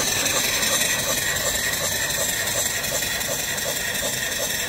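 Horizontal mill steam engine, 3-inch bore by 4-inch stroke, running smoothly on about 50 pounds of steam: a quick, even beat of exhaust and moving parts over a steady hiss.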